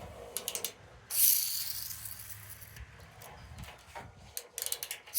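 Several quick plastic clicks, typical of a clicker-pen mechanism being worked, with a loud hiss about a second in that fades away, and more clicks near the end.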